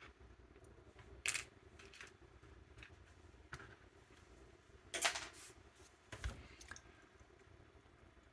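Scattered light clicks and taps of small plastic model parts and tools being handled on a workbench, with a louder click about five seconds in and a dull knock just after six seconds.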